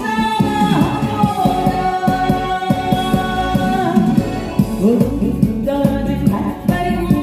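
A song sung over amplified backing music with a steady beat; the voice holds one long note for about three seconds early on.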